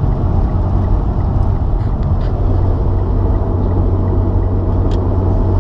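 Steady low drone of a Mitsubishi Lancer Evolution X's engine and road noise while driving, heard inside the cabin. The car is running very lean because its aftermarket fuel pump was installed without the white ring.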